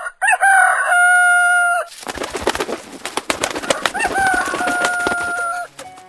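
A rooster crowing twice, each a long held call of about a second and a half with a short rise at the start. Between the crows come many short clucks and chirps.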